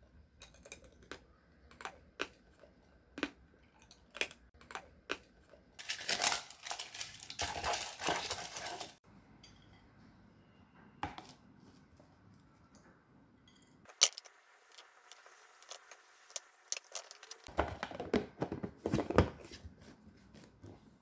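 Scattered small clicks and taps, with two longer stretches of crinkling and rustling, like packaging or paper being handled, about six and eighteen seconds in.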